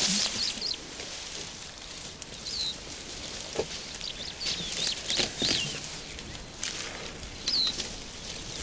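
Soft rustling and tearing of grass as an African elephant calf's trunk pulls at it, with short high bird chirps several times.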